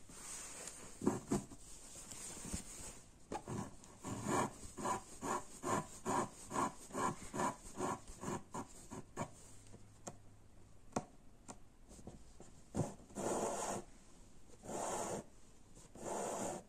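Needle and embroidery thread drawn through fabric stretched taut in an embroidery hoop, the thread rubbing as it is pulled. First comes a regular run of short pulls, about two a second, then three longer pulls near the end.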